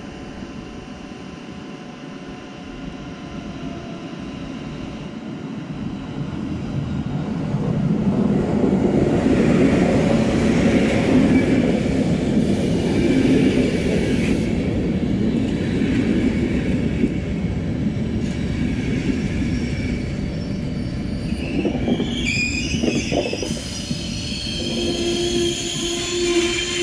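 Intercity passenger train pulling into a station: its rumble swells over the first several seconds as it approaches, then a steady heavy rolling rumble of the coaches passing close by. From about 22 seconds in, high-pitched metallic squealing joins as the train slows to stop.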